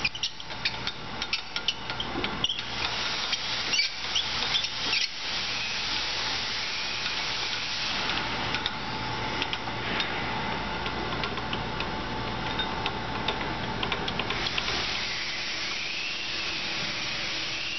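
Acer AGS-618 hand surface grinder being worked by hand: clicking and rattling from the cranked table handwheels and feed mechanism through the first few seconds. After that comes a steady machine running sound with a low hum.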